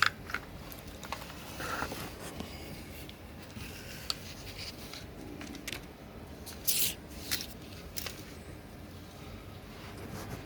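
Handling noise from a wired control box being moved about: scattered light clicks and knocks with a few short scrapes, the longest about two thirds of the way in.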